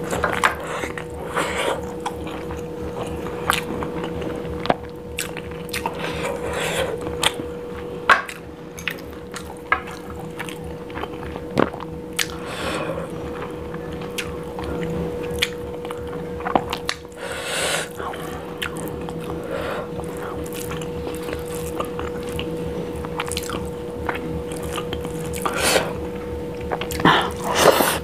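Close-miked eating by hand: wet chewing and mouth sounds, with fingers squishing and mixing biryani rice and curry gravy, in irregular short clicks and smacks. Partway through comes a longer wet scraping as gravy is pushed from a dish onto the plate. A faint steady hum sits underneath.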